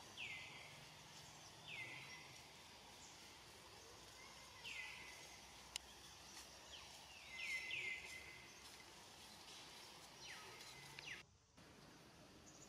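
A bird's short, high calls, each sliding down in pitch, repeated every second or two with a quick run of three near the middle, over faint outdoor background.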